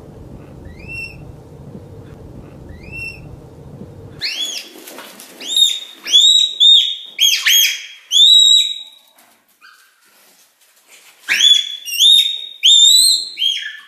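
Red panda squeaking: two faint high squeaks that rise and fall over a steady background hiss, then the hiss stops suddenly about four seconds in and loud, high-pitched arched squeaks follow in quick runs of several a second, with a pause of about two seconds before a last run.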